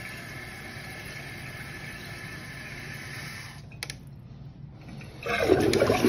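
Newly fitted toilet fill valve hissing steadily as the tank finishes filling, then shutting off about three and a half seconds in, followed by a click. About five seconds in the toilet is flushed and water rushes loudly out of the tank.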